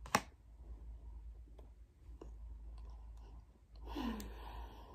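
Close-miked mouth sounds of someone eating: a sharp click just after the start, then scattered small wet clicks of chewing. About four seconds in comes a brief voice sound that falls in pitch.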